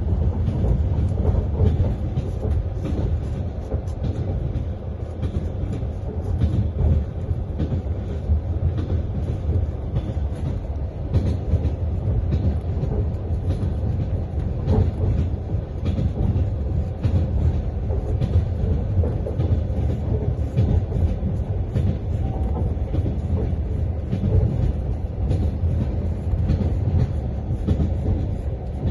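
Passenger train running along the track, heard from inside the carriage: a steady low rumble with the wheels repeatedly clacking over the rail joints.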